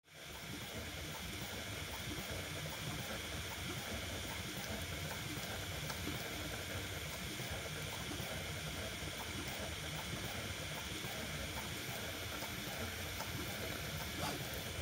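Original Prusa Mini 3D printer running mid-print: a steady whir of its stepper motors and cooling fans, with faint ticks.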